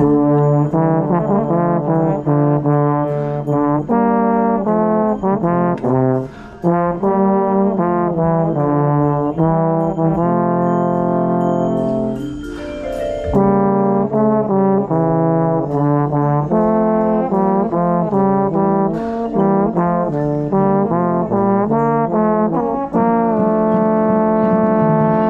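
Marching band brass section (trombones and trumpets) playing loud held chords that shift from note to note, with a brief drop about six seconds in and a short lull about twelve seconds in.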